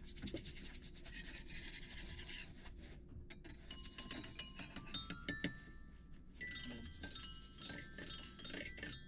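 Hand-made Foley footsteps for a scurrying squirrel: a fast run of crackly, scratchy taps. About four seconds in come a few held bell-like tones stepping in pitch, and a softer scratchy hiss follows near the end.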